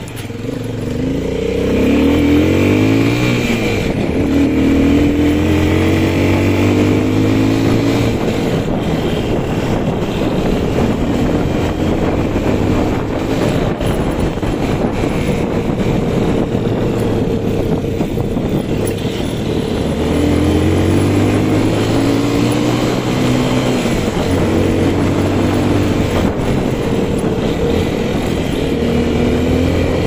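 Beker Cross 150cc motorcycle engine running under way, rising in pitch as it pulls over the first few seconds. It eases off for a stretch in the middle under a steady rush of wind and road noise, then pulls again about two-thirds through.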